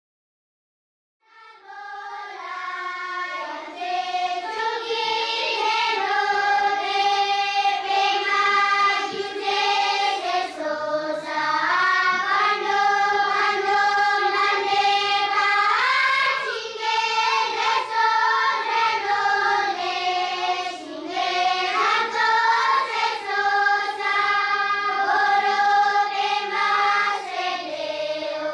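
Background music of a choir singing long, slowly moving held notes. It fades in from silence about a second in.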